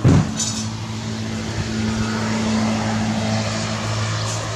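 A sharp thump at the start, then a motor vehicle's engine humming steadily, growing a little louder about two to three seconds in and easing off again.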